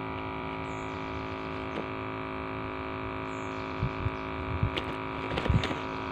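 Steady hum with many even overtones. In the second half come a few faint clicks and rustles as a caught barramundi is handled and unhooked.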